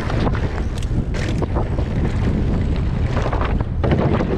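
Wind buffeting the microphone of a camera on a mountain bike ride down a dirt trail, a loud steady rumble with frequent short knocks and rattles from the bike over rough ground.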